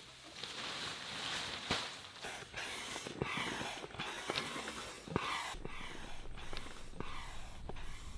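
Nylon fabric of a Heimplanet inflatable tent rustling as it is spread out, then the Heimplanet hand pump worked in regular strokes, about one and a half a second, each with a rush of air, as the tent's air beams inflate.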